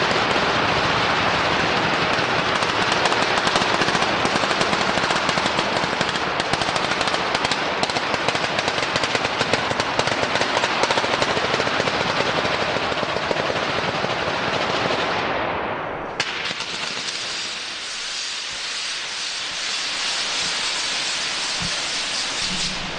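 Firecrackers packed on a ceremonial cart going off in a rapid, unbroken volley of bangs, like machine-gun fire. About 16 s in the barrage breaks off and a hissing, crackling spray from spinning firework pinwheels takes over, the next stage of the display.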